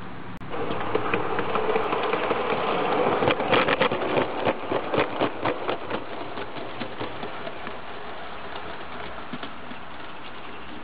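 Live-steam garden-railway locomotive, Caledonia, with its coaches passing close by: steam hiss and quick, irregular clicks from the wheels and running gear on the track. It starts suddenly about half a second in, is loudest a few seconds in, then fades as the train moves away.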